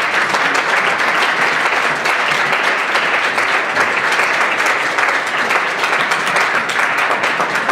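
Audience applauding steadily: many people clapping at once in a dense, even patter.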